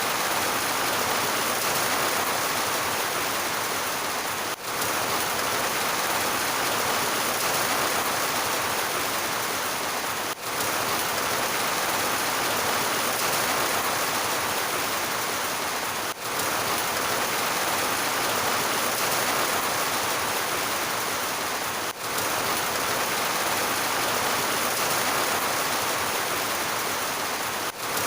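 Heavy rain falling in a steady, dense hiss, with a brief dip in loudness about every six seconds.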